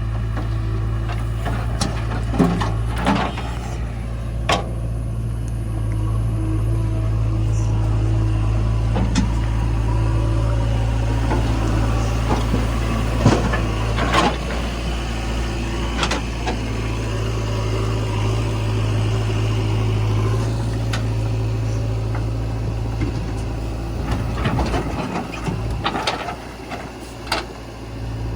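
Heavy diesel machinery running steadily, typical of a JCB 3DX backhoe loader at work, with scattered short knocks and clanks throughout. The drone briefly eases off near the end.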